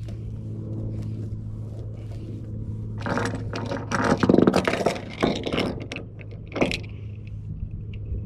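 A steady low mechanical hum, with loud scraping and rattling from about three seconds in to about seven seconds.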